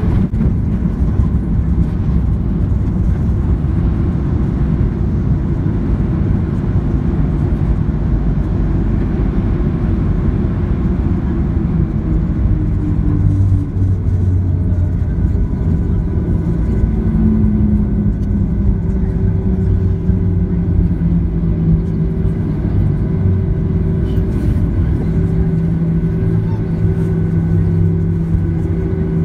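Cabin noise of a Boeing 737-800 taxiing after landing: a steady, loud low rumble from its CFM56 engines at idle and the rolling airframe. Low engine hum tones come through more plainly about halfway in.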